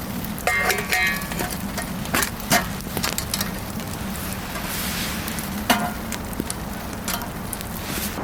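Wood fire crackling steadily in a small fire stove, with many sharp pops and snaps scattered irregularly through it.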